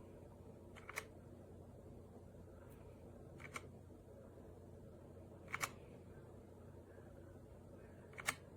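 Four sharp isolated clicks a couple of seconds apart, the later ones doubled, over a low steady hum.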